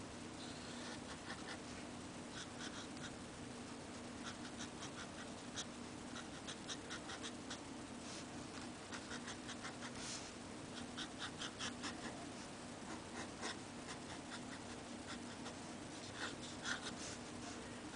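Onoto fountain pen nib scratching on paper in short, irregular strokes as it draws, with quicker runs of strokes about two-thirds of the way through and again near the end.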